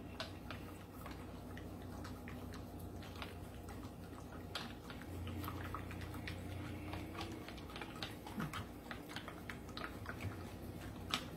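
Chopsticks stirring an egg-and-milk mixture in a small stainless-steel saucepan, with light, irregular clicks and taps of the sticks against the pan.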